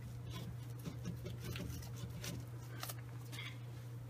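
Faint scraping and light, irregular clicks of a screwdriver and gloved hands working at a car's rear brake drum while the brake is being loosened to pull the drum. A steady low hum runs underneath.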